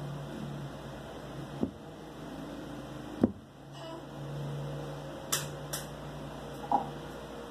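Steady low background hum, broken by about five short, sharp clicks and knocks, the loudest a little over three seconds in.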